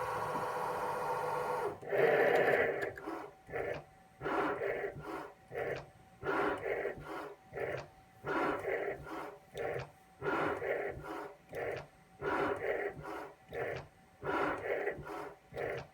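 CNC milling machine running a program in which a fixed cutter is used like a shaper. A steady multi-tone machine sound stops about two seconds in, and then the machine moves in short repeated strokes, roughly three every two seconds.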